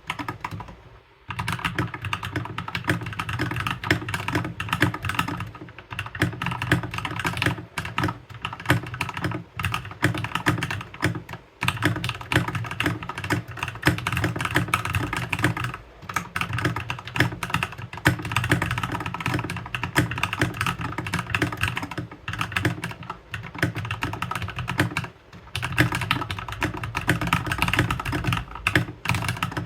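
Continuous fast typing on an RK84 mechanical keyboard fitted with Gateron Yellow linear switches and XDA-profile keycaps: a dense stream of keystroke clacks, broken by a few short pauses.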